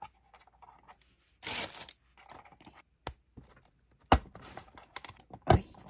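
Small plastic doll accessories clicking and knocking against a plastic toy playset as they are handled, with a brief rustle of crinkly wrapping paper early on. The loudest is a sharp knock about four seconds in, and another follows near the end.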